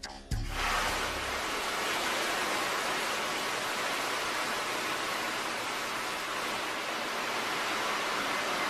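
Steady, even hiss as a high-power gas laser beam burns into a titanium target. It starts abruptly just after the beginning and holds at one level throughout.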